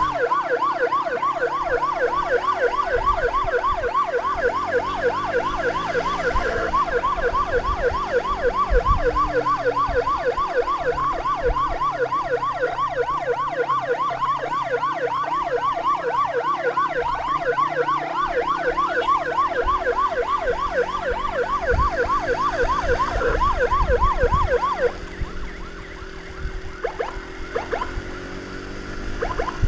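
Emergency siren in a fast yelp, rapid rising sweeps several times a second, over motorcycle engine and road noise. The siren cuts off about 25 seconds in, leaving the engine and traffic.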